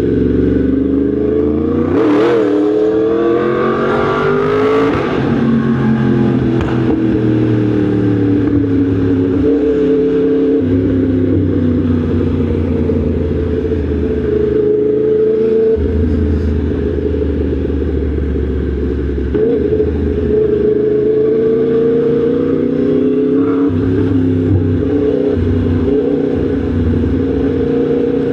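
Yamaha MT-10 SP motorcycle's crossplane inline-four engine running under way. The revs climb in the first few seconds, then rise and fall with the throttle and gear changes.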